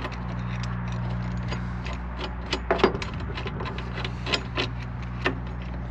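Scattered metallic clicks and clinks of small parts being handled, over a steady low hum from an idling vehicle engine.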